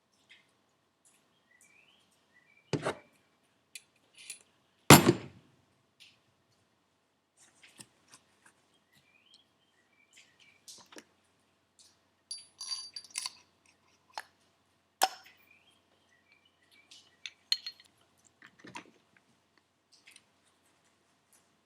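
Metal turbocharger parts and hand tools clinking and knocking on a workbench during reassembly: scattered sharp clicks and knocks at an irregular pace, the loudest about five seconds in.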